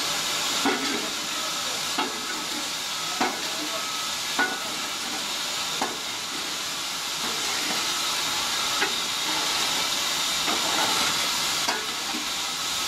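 Steady steam hiss from the standing Hall class steam locomotive, with short light knocks about every second or so from hand work at the open smokebox door during disposal.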